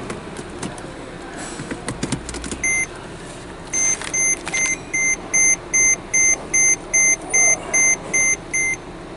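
An electronic beeper sounds a run of about a dozen short, high, evenly spaced beeps, roughly three a second. Before them come a few light clicks and a single beep.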